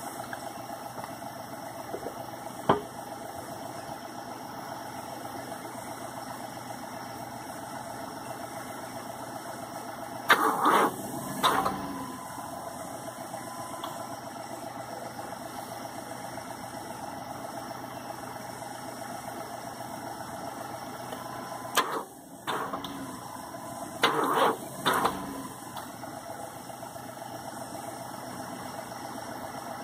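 A vehicle engine idling steadily, with a few brief louder noises over it about a third of the way in and again twice near the end.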